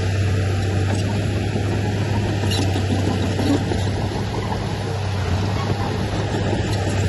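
Diesel engine of heavy earthmoving machinery running steadily, a continuous low hum.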